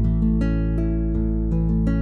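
Background music: a plucked acoustic guitar playing a quick run of single notes.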